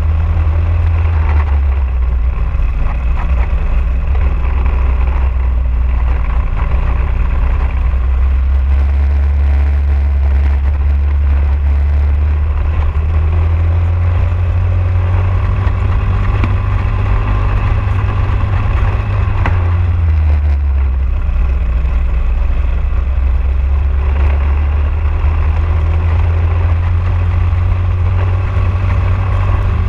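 Racing kart's single-cylinder four-stroke Briggs & Stratton LO206 engine, heard onboard at racing speed. Its note drops off about twenty seconds in as the driver lifts for a corner, then climbs again on the way out.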